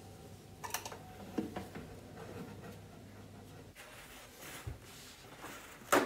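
Faint handling noises of someone reaching into a kitchen cabinet: light rustling with a few soft knocks, and a sharper click near the end.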